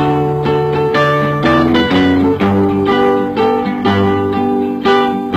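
Background music of plucked guitar, notes and chords changing every half second or so.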